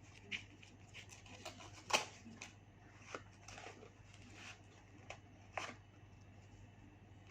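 Scattered light rustles and clicks of a chocolate-egg package being opened and handled, with the sharpest click about two seconds in.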